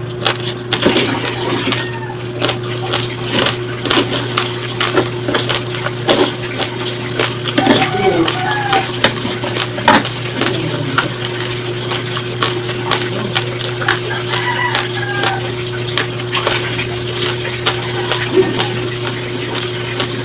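Close-miked crunching and chewing of uncooked white rice coated in peanut butter: dense, irregular crisp cracks as the hard grains break between the teeth, over a steady low electrical hum. A spoon scrapes the rice on the wooden plate near the start, and a few short calls sound in the background around the middle.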